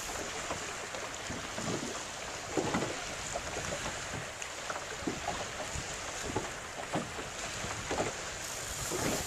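Wind buffeting the microphone over choppy open water, with small waves slapping against the boat's hull at irregular intervals a second or two apart.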